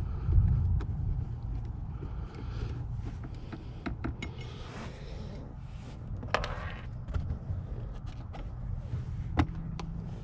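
Hand work with a Phillips screwdriver on a car's plastic center console: scattered clicks and a couple of short scrapes as screws are turned out and the trim is handled, over a steady low rumble.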